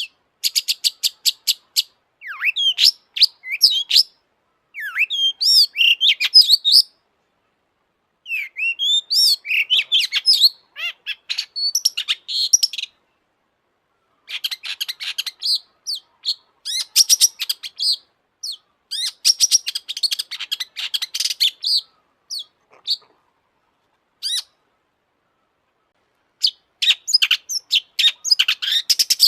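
Long-tailed shrike (cendet) singing a loud, fast song of rapid clicking notes mixed with quick whistled glides. The song comes in bursts of a few seconds with short pauses between them.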